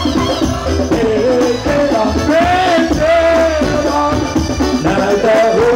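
Live sholawat, Islamic devotional song: a voice singing a melody over a steady beat of percussion, amplified for a crowd.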